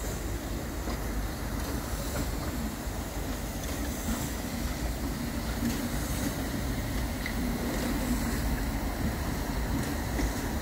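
Ol49-69 steam locomotive and its passenger coaches rolling past, a steady rumble of wheels on the rails with a few faint knocks.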